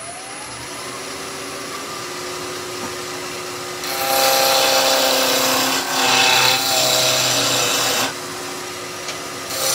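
Wood lathe spinning up to about 2,000 rpm, a rising whine that settles into a steady hum. About four seconds in, a 6 mm bowl gouge starts roughing down the spinning spindle blank, a loud hiss of cutting that breaks off briefly near six seconds, stops around eight and starts again just before the end.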